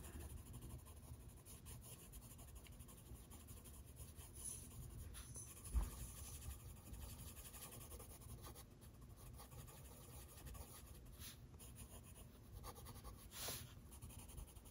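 Faint scratching of a coloured pencil shading on paper, with a light knock about six seconds in.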